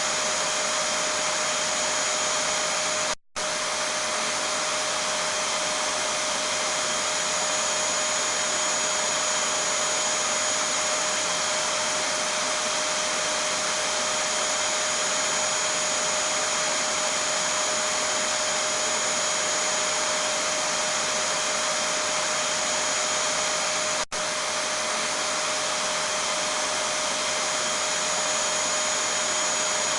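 Vacuum cleaner running steadily: an even rushing of air with a steady whine over it. The sound cuts out for a split second about three seconds in and dips again briefly about twenty-four seconds in.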